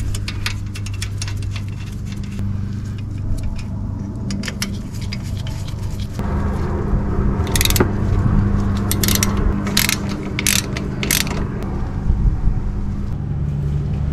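Ratchet wrench clicking as it runs in and tightens the caliper bolts on a Smart Fortwo's front brake caliper. A quick run of light clicks is followed, about six seconds in, by louder work with several sharp clicks. A steady low hum runs underneath.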